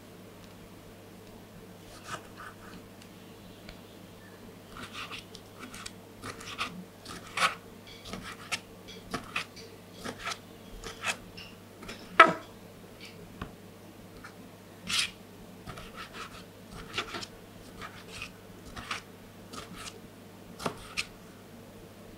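Kitchen knife slicing and dicing tomatoes on a plastic cutting board: irregular soft taps and cuts of the blade meeting the board, with a few louder knocks.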